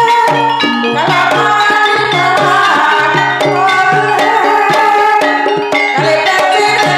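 Javanese gamelan music in the Banyumasan jaranan style, played for a kuda kepang dance. Steady low hand-drum strokes that dip in pitch run under interlocking struck metal or bamboo melody notes.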